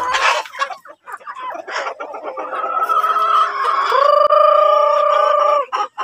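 Rhode Island Red chickens clucking, then a rooster crowing: one long held call from about four seconds in, the loudest sound here.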